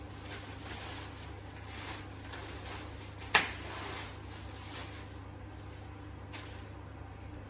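Packaging being handled: rustling, with one sharp knock a little over three seconds in and a fainter click near the end, over a steady low hum.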